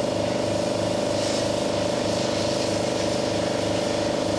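Torrent 400 parts washer running: a steady pump hum with the hiss of its pressurised water spray on the parts inside the cabinet.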